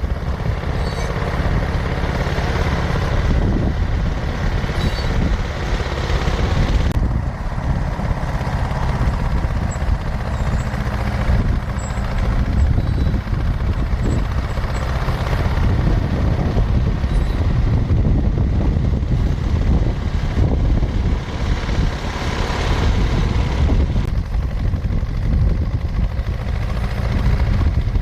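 John Deere 450 crawler dozer running and working, its engine a steady low rumble that swells and eases under changing load as it pushes dirt.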